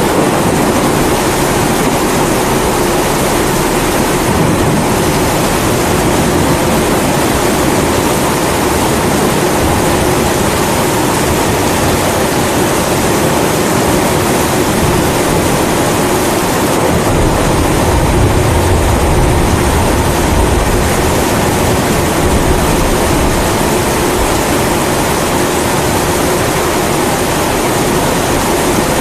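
Pressurised kerosene (Primus-type) stove burner roaring steadily, mixed with the steady hiss of rain. A low rumble of thunder swells in the middle and fades.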